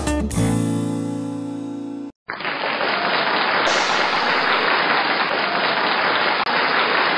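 Theme music ending on a held chord that rings out for about two seconds. After a brief gap, a steady, dense rushing noise follows and carries on to the end.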